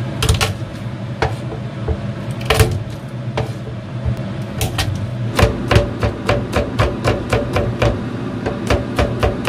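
Kitchen knife chopping on a plastic cutting board: scattered single knocks at first, then a quick, even run of chops, about three a second, through the second half as garlic is minced.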